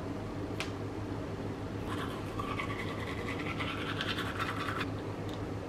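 Toothbrush scrubbing teeth in quick back-and-forth strokes for about three seconds, starting about two seconds in.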